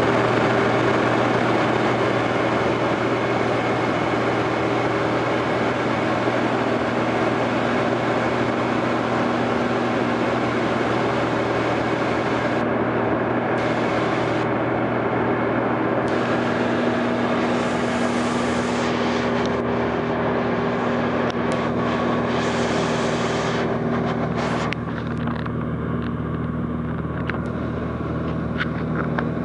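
Small propeller plane's engine and propeller droning steadily, heard from inside the cabin: a constant hum with a hiss over it. The hiss thins briefly a few times and drops away somewhat for the last few seconds.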